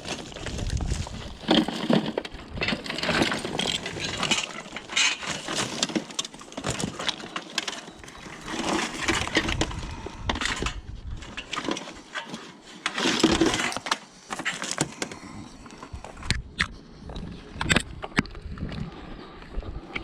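Scrap being pulled out of a skip and handled: irregular clattering, scraping and knocks, with louder bursts of rummaging a few times.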